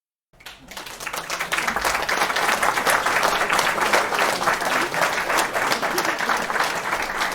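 Audience applause: many people clapping densely together. It starts suddenly about a third of a second in, swells within a second and then holds steady.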